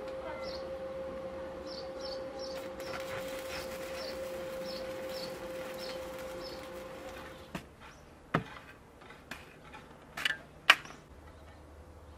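Electric arc welding on a steel pipe post: a steady buzzing hum with crackle that stops about seven and a half seconds in. Several sharp knocks follow, the loudest near the end, while small birds chirp.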